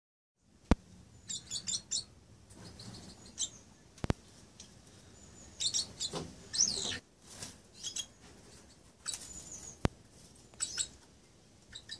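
Two-barred crossbills (white-winged crossbills) calling: short chirping notes in quick clusters of three to five, one of them sliding down in pitch about six and a half seconds in. Three sharp clicks, the loudest sounds, come at roughly a second, four seconds and ten seconds in.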